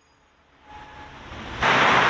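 Near silence, then a faint rising sound, then about one and a half seconds in a steady, loud rushing noise cuts in abruptly, like wind on the microphone.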